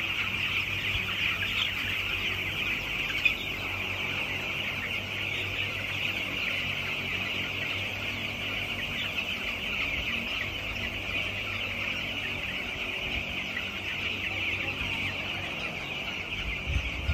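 A large flock of young broiler chicks peeping continuously, a dense, steady chorus of high cheeps.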